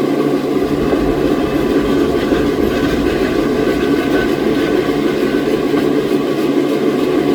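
Old sawmill machinery running steadily: a loud, even rumble with a constant low hum and a faint higher whine in the middle.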